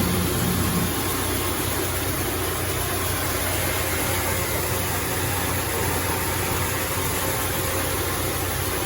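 Shin Nong rice mill running steadily while milling red rice: a constant low hum under a dense, even hiss.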